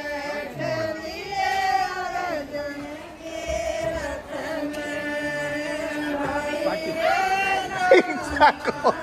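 Group of women singing a traditional Indian folk song together in long held notes, sung for a new car's puja. A few short, sharp loud sounds break in near the end.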